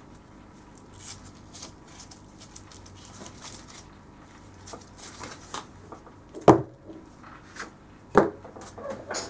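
Leather tomahawk sheath handled with gloved hands: soft rustles and scrapes, then two sharp knocks on the worktable, the first the loudest, as the tomahawk is moved about on the table.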